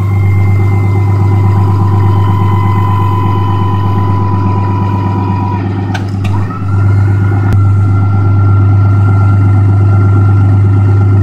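Fisher Minute Mount plow's electric hydraulic pump motor whining as it drives the plow, run twice with a click and a short break about six seconds in, the second run a little higher in pitch. The pump is working a system just refilled after low fluid made the plow sluggish. Under it, the 2010 Cummins 6.7 diesel with straight-piped exhaust idles with a steady low hum.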